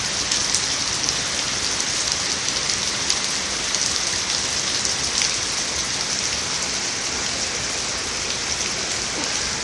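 Rain falling steadily: a dense, even hiss with scattered sharper drop hits.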